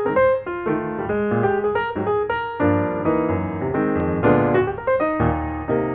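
Background piano music: a continuous flow of quick notes over chords.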